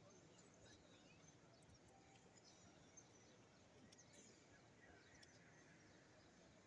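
Near silence: the faint ambience of a large open-air crowd, with scattered faint high chirps.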